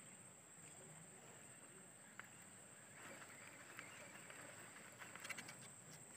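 Near silence: faint riverside ambience with a steady high-pitched hum, and a few faint ticks and rattles about three to five and a half seconds in.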